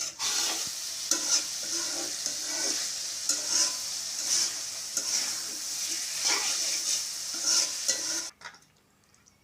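A spatula stirring and scraping spiced potato filling in a hot pan. The filling sizzles under scraping strokes about once a second as it is cooked down dry until slightly sticky. It stops abruptly about a second before the end.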